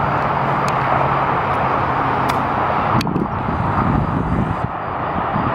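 A golf club striking the ball once, about three seconds in, as a short, sharp click of a chip shot, over a loud, steady rushing outdoor background.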